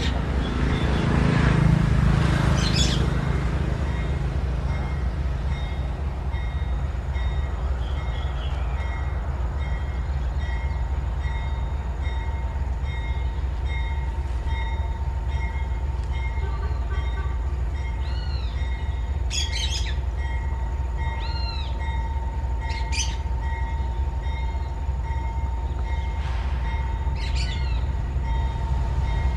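Freight train pulling out slowly: a steady low rumble of the train rolling, a little louder in the first few seconds, with faint steady high-pitched tones. Birds chirp several times in the second half.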